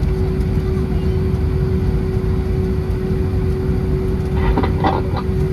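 Airbus A320 cabin noise heard from a window seat: steady loud engine and airflow rumble with a steady hum running under it. A few brief, fainter sounds come through near the end.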